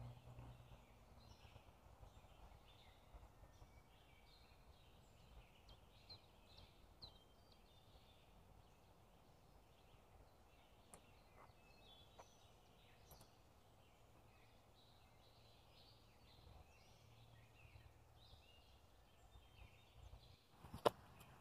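Faint woodland birdsong: several small birds chirping and calling in quick, overlapping short notes. A couple of sharp clicks come near the end.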